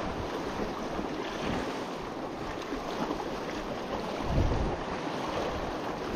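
Wind buffeting the microphone over the steady rush of a fast tidal current pouring over the rocks, with a stronger low gust a little past four seconds in.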